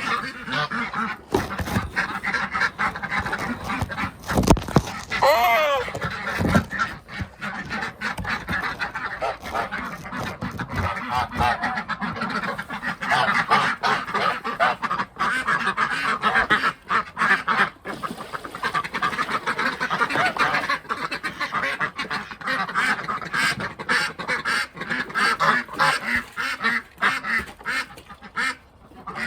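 Flock of domestic ducks quacking loudly and without pause, with geese honking among them: alarm calling at an unfamiliar sight. A few dull thumps about four seconds in.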